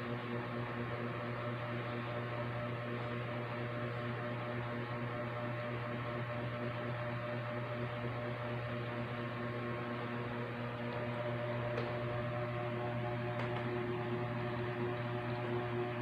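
A steady hum with several held tones over a soft hiss, unchanging except that one of the middle tones grows a little stronger near the end.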